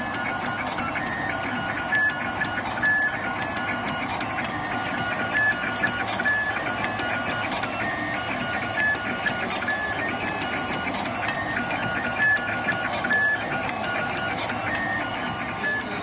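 WPM 380T automatic wire cutting and stripping machine running through its cycle. Its motors whine in short tones that jump between pitches as the cable is fed and stripped, with repeated sharp clicks of the cutting mechanism.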